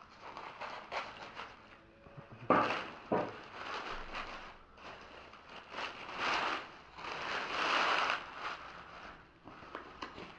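Packaging being handled and unwrapped: irregular rustling and crackling with a few sharp knocks, loudest about two and a half seconds in and again over a longer stretch later on.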